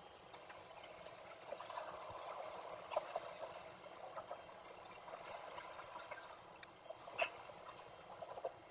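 Peregrine falcon plucking and tearing at a gull carcass: irregular rustling broken by sharp snaps and ticks, the loudest about three and seven seconds in.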